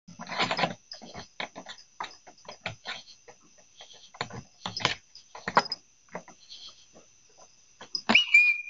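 An animal sniffing and pawing at a Vivint doorbell camera: a run of short, irregular snuffles, clicks and scrapes close to the microphone, over the camera's faint steady electronic whine. Near the end comes a short beep.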